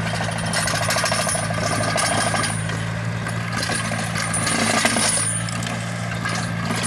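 Small Yanmar diesel tractor running steadily under load as it drags a steel soil-leveling implement through stony soil, with a fast rattling clatter over the engine note.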